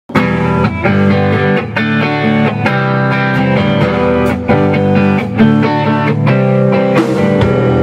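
Rock band playing an instrumental intro: strummed electric guitar chords over drums.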